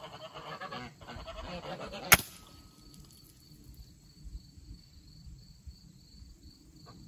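Geese honking, then a single sharp shot from a silenced scoped pellet rifle about two seconds in; after it, only a steady cricket trill.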